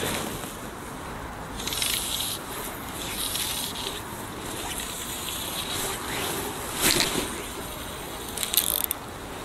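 Steady outdoor hiss of wind on the microphone over a lake, with a brief swish about seven seconds in and a few light clicks soon after as a fly rod is cast and the fly line is worked.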